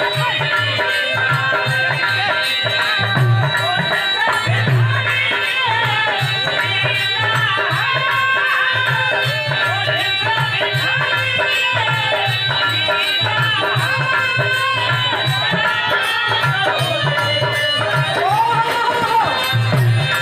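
Indian folk music: a hand drum plays a steady beat under a winding, ornamented melody.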